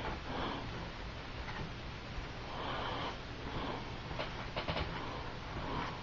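A person breathing slowly through the nose close to the microphone, several soft breaths a second or two apart. A quick run of small clicks about four seconds in, from hands handling the wires and heat-shrink tubing.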